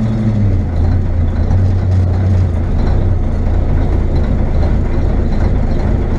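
Mack B61 dump truck's diesel engine running steadily while it powers the dump-bed hoist; its note drops a little about half a second in, then holds.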